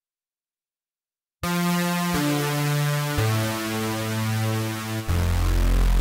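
Silence for about the first second and a half, then the Tone2 RayBlaster 2 software synthesizer playing keys presets: held chords with a bright, hissy top that change every second or two. A little after five seconds in, a fuller patch with heavier bass takes over, the 'Supersaw keys MF' preset following 'Squaric FM Keys 2 IW'.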